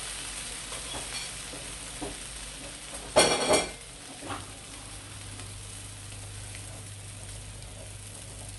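Egg-soaked bread frying on a flat griddle pan, a steady soft sizzle. About three seconds in, a brief loud clatter stands out above it.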